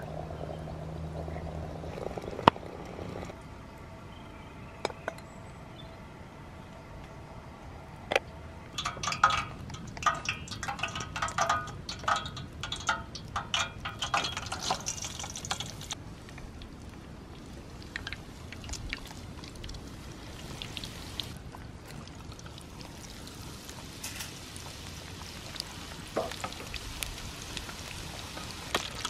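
A metal skimmer clinking and scraping against a frying pan in quick, ringing taps for several seconds, then hot oil bubbling and sizzling as grated batter fries.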